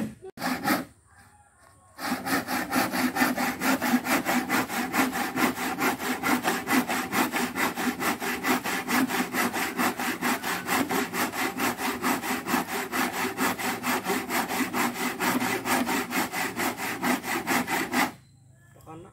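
Hand saw cutting through a reclaimed wooden boat plank in quick, even back-and-forth strokes, starting about two seconds in and stopping shortly before the end. A couple of short knocks come just before the sawing.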